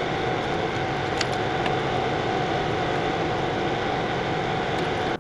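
Excavator engine running steadily, loud and close, with a faint steady whine. It cuts in and out abruptly.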